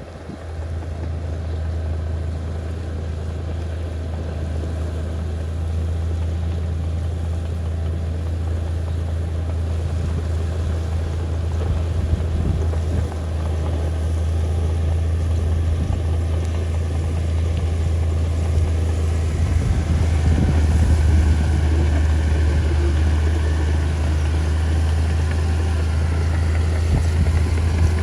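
Mitsubishi bulldozer's diesel engine running steadily while clearing soil: a deep drone that grows gradually louder, with faint wavering higher tones joining in the second half.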